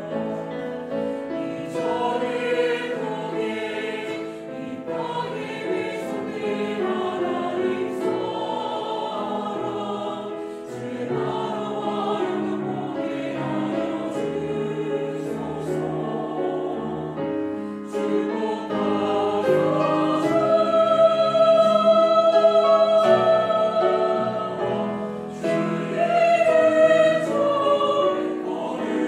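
Mixed-voice church choir singing a sacred anthem in Korean, in parts, with sustained sung lines that swell to a louder held chord about two-thirds of the way through.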